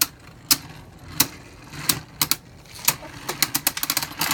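Two spinning Beyblade Burst tops, Vise Leopard and Blast Jinnius, in a plastic stadium: sharp clacks as they hit each other or the stadium wall, over a steady whir of spinning. The clacks come faster near the end, as one top runs low on spin and the battle closes.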